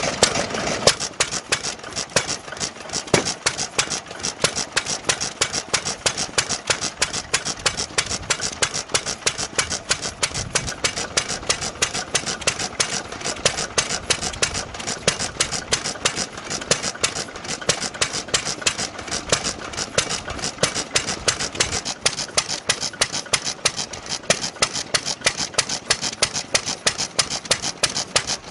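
Old Kubota 3C stationary engine running steadily, firing on an even, quick beat with mechanical clatter.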